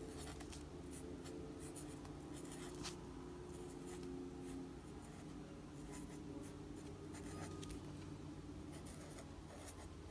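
Faint scratching of a Zebra Mildliner marker tip on planner paper as words are written in short strokes, over a faint steady hum.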